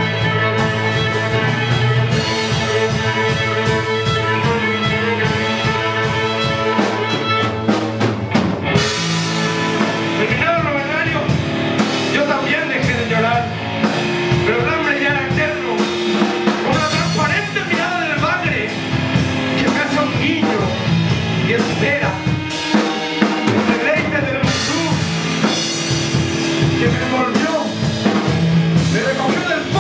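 Live instrumental rock: electric guitar and drum kit with cymbal strikes, joined by a bowed violin. From about ten seconds in, a wavering high line runs over the steady chords.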